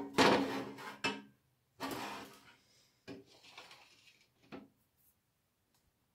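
Air fryer basket knocking and scraping as it is handled and set down on a glass hob. A loud clatter with a brief ring comes first, then a second scrape, softer scrapes and a short knock.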